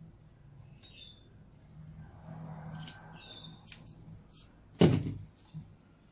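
A small knife trimming fresh radishes by hand, with crisp cutting clicks. Short high chirps come every couple of seconds. A single thump about five seconds in is the loudest sound.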